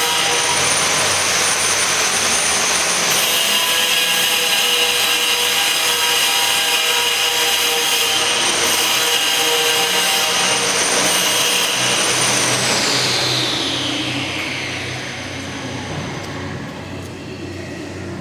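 High-speed electric spindle of a CNC router running free without cutting: a loud, steady, high-pitched whine. About two-thirds of the way in, the whine falls in pitch and level as the spindle winds down.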